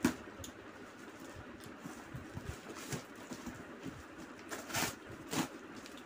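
Cardboard box and paper packing being handled and pulled open: a sharp snap at the start, then scattered rustling and scraping, with two louder rustles a little before the end.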